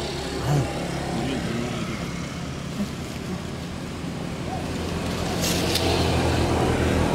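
A motor vehicle's engine running with a steady low hum, growing louder from about five seconds in. A short scratchy noise comes just after it starts to swell.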